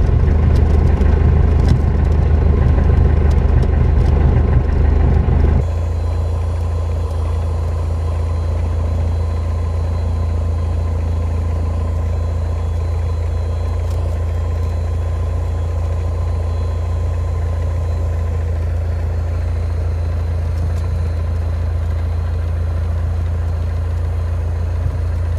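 Single-engine light aircraft's piston engine and propeller running, heard from inside the cabin; about six seconds in it drops to a quieter, steady idle.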